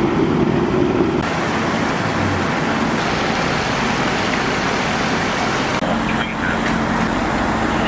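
Steady rushing noise of water gushing from a fire hydrant that a crashed car has broken and come to rest on.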